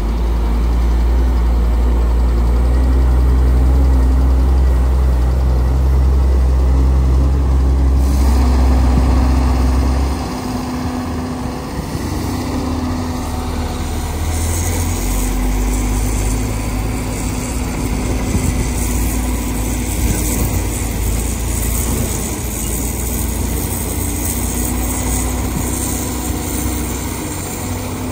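Heavy diesel engines of a loaded mining dump truck pulling away and driving past, with a Komatsu PC450LC excavator's engine running nearby. A deep rumble is strongest for the first ten seconds, then eases to a steadier running sound.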